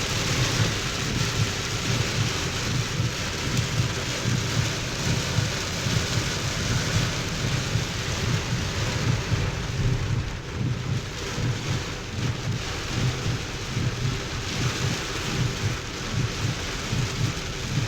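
Heavy rain drumming on a moving car's roof and windshield, heard from inside the cabin, with a steady low rumble underneath.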